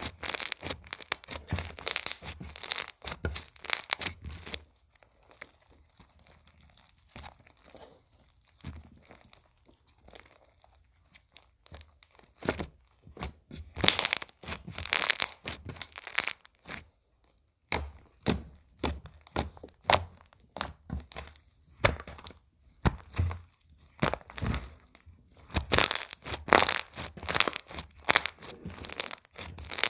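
Slime being squished, stretched and pulled apart by hand: spells of dense crackling and sticky popping, with a quieter stretch of several seconds in between.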